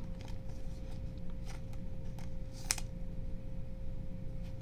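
Faint handling of a trading card in the fingers: light rustles and small ticks, with one crisp click about two and a half seconds in, over a steady faint hum.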